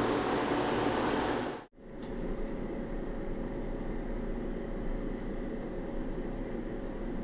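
Steady, wide hiss of the platform beside a stopped KTX high-speed train, which breaks off sharply after about a second and a half. Then comes the quieter steady hum of the ventilation inside the stationary first-class carriage, with a faint steady tone.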